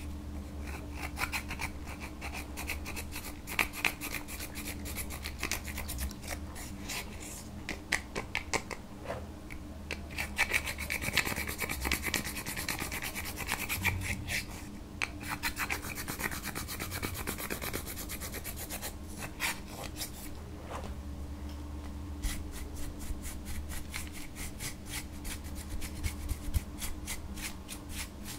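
Plastic tool scraping pressed eyeshadow powder out of a makeup palette's pans, quick rasping strokes in runs with short pauses, the crumbled powder falling into a glass dish.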